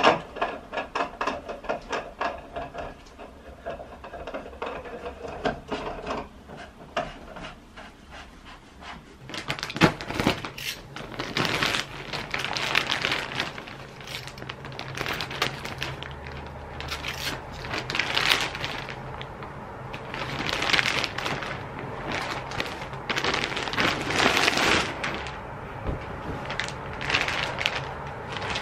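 Clear plastic wrapping on vacuum-packed IKEA EKTORP sofa cushions crinkling and rustling in repeated bursts as it is handled and opened, from about ten seconds in. Before that there is a sharp knock at the very start and lighter tapping for several seconds.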